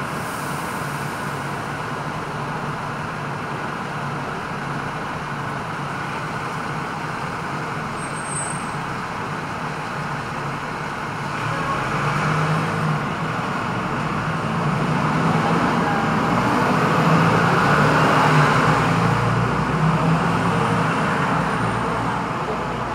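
Steady street traffic heard from a stationary double-decker tram. About halfway through, a heavy vehicle's engine close by grows louder with a low hum, then eases off near the end.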